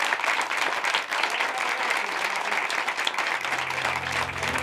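A roomful of people applauding, a dense steady clapping. Low sustained music tones come in under it about three seconds in.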